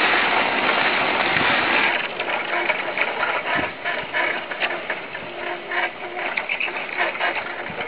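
Hand-pushed steel roof-tile forming carriage rolling along its rails over wet cement, a steady rattle with irregular clicks and scraping.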